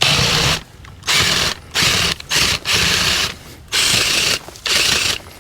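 Half-inch drill driving an auger bit into the ground, its slip clutch ratcheting in about seven short bursts as the bit binds.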